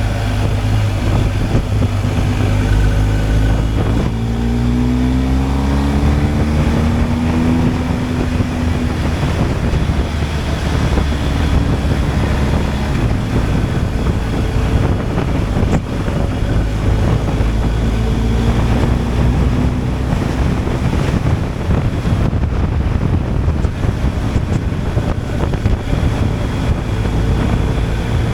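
BMW R 1250 GSA's boxer-twin engine running under way, its pitch rising as it accelerates about four to eight seconds in, then holding steady.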